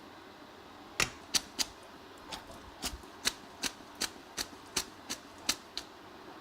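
A run of about a dozen sharp clicks and taps of a kitchen utensil, such as tongs, against a pan or plate while angel hair pasta is loosened and plated, unevenly spaced at two or three a second.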